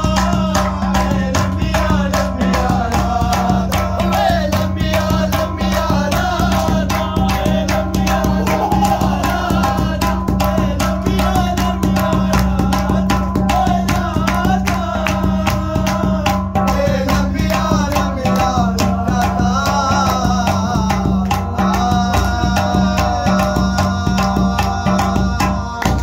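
Hand drumming on an upturned aluminium cooking pot, a fast steady rhythm of slaps and taps, with a man singing along.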